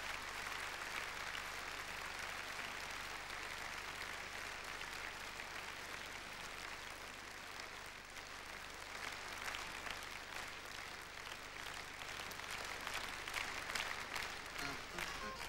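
Large audience in a theatre applauding, a steady dense wash of clapping in which single claps stand out more in the second half.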